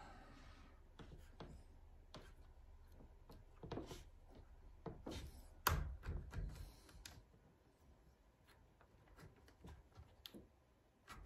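Faint clicks and light knocks of a rifle bipod being handled and adjusted by hand, its legs and head worked; one sharper knock comes about halfway through.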